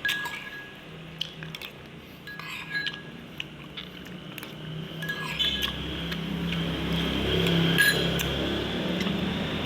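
Someone eating Indomie noodle soup: scattered clinks of a utensil against the bowl and chewing.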